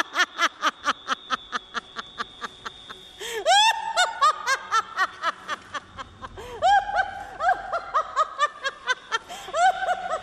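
A woman laughing loudly and theatrically in long runs of rapid 'ha-ha-ha' pulses, about five a second. About three seconds in, a fresh burst of laughter starts with the pitch swooping up and down on each pulse.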